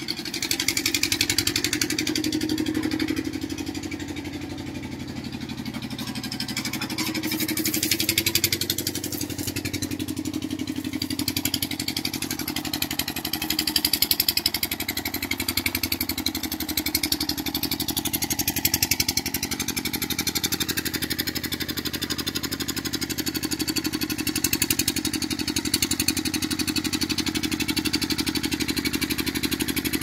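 An engine running steadily.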